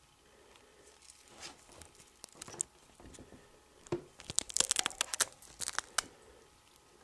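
Rustling and crackling right at the microphone as a chinchilla's fur brushes against the camera, with a dense run of sharp crackles between about four and six seconds in.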